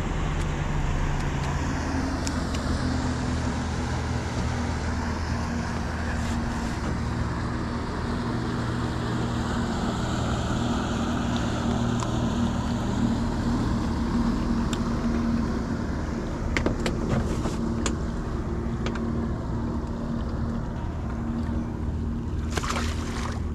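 Electric trolling motor running on spot lock to hold the boat in place against the drift, a steady hum whose pitch shifts slowly as it adjusts thrust. A few short clicks and knocks of handling.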